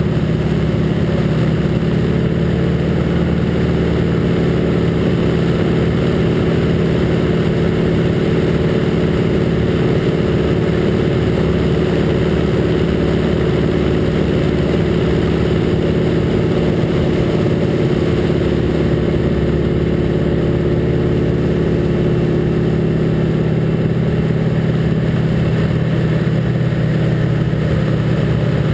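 The Harvard II's Pratt & Whitney R-1340 Wasp nine-cylinder radial engine and propeller running steadily in flight, a loud droning heard from inside the open-framed cockpit with wind noise over it.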